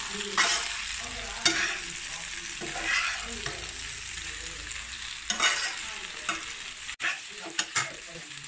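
Metal spatula stirring and scraping boiled macaroni in a frying pan over a steady sizzle, in strokes a second or two apart. A few sharp clicks of the spatula against the pan come near the end.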